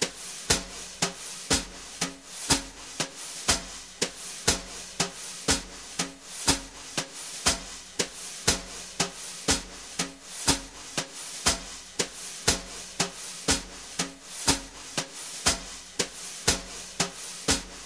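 Background music: a steady drum beat at about two beats a second, with a low bass line.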